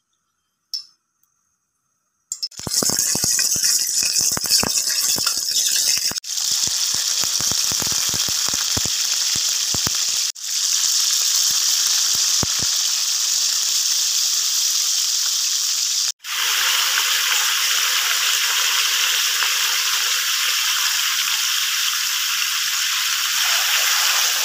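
Marinated pork steaks frying in hot vegetable oil: a loud, steady sizzle with crackling pops. It starts about two seconds in, after a near-silent start.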